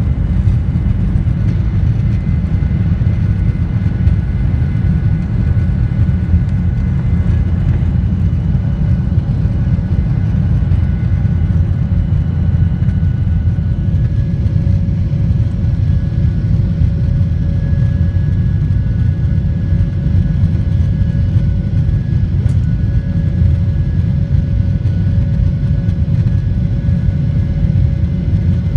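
Cabin noise over the wing of a Boeing 737-900ER during takeoff and initial climb: its CFM56-7B engines at takeoff thrust make a steady, loud low rumble, with faint steady whining tones coming up about halfway through.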